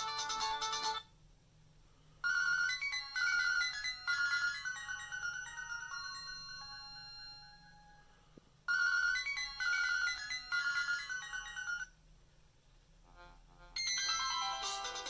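Nokia mobile phone ringtones, beeping electronic melodies. One tune cuts off about a second in. After a pause, another plays about two seconds in and starts over about nine seconds in. A third tune begins near the end.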